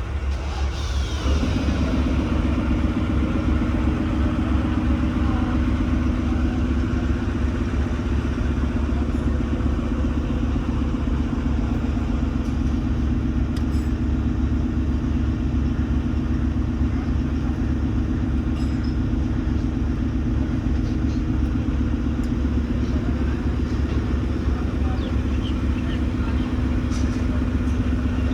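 A heavy workshop machine running steadily: a low, fast-pulsing drone with a steady hum that comes in about a second in and holds.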